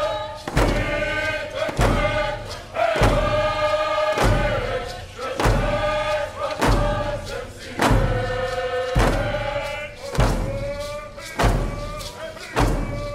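A drum beaten in a slow, steady beat, about one stroke a second, under chanted singing with long held notes.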